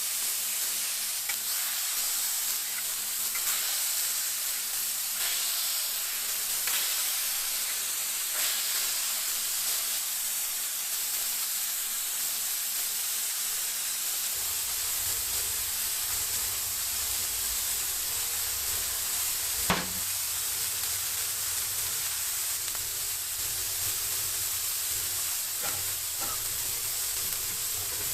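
Food frying on a hot cooking surface, sizzling steadily with a few faint clicks and one sharp click of a utensil a little before the 20-second mark. A low hum comes in about halfway through.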